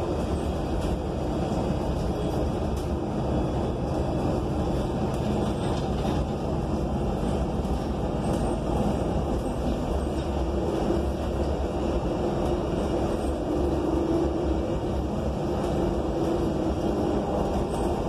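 Inside a moving ENC Axess transit bus: steady drone of its Cummins Westport L9N natural-gas engine and Voith transmission mixed with road noise, with a hum that swells a little a couple of times.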